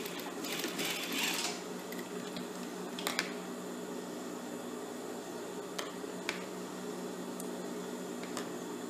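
Industrial sewing machine motor humming steadily while the machine is not stitching. A brief rustle comes near the start, a sharp double snip of scissors cutting elastic about three seconds in, and a few single clicks after.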